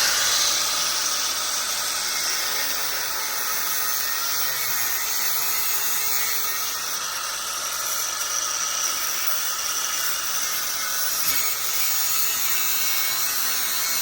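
Corded electric power tool running continuously under load, its pitch wavering slightly.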